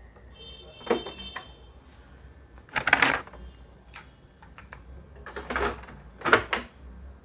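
A handful of mechanical clicks and knocks from operating an LG LPD103 boombox, the loudest about three seconds in, between one programme and the next.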